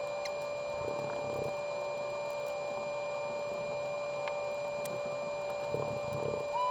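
Steady high-pitched electrical hum with a few faint ticks.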